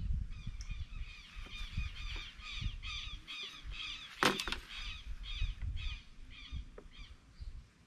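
A bird calling over and over, a long run of two to three calls a second that fades out near the end, with one sharp knock about four seconds in.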